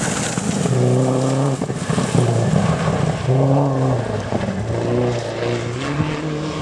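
Rally car flat out on a gravel stage: a loud rush of engine and tyre noise as it passes close, then the engine revving hard as it pulls away, its pitch climbing and dropping back with several quick gear changes.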